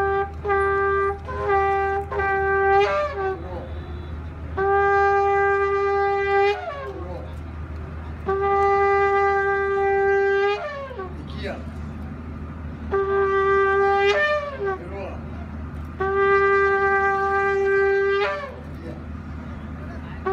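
A long curved shofar blown in a sequence of calls: a run of about five short notes in quick succession, then four long, steady tekiah blasts of about two seconds each with pauses between them. Each note ends with a short slide in pitch as the blast breaks off.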